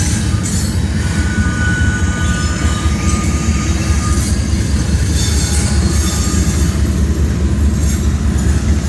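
Freight train of coal hoppers rolling across a bridge: a steady, heavy rumble of the cars, with a thin wheel squeal about a second in that lasts a couple of seconds.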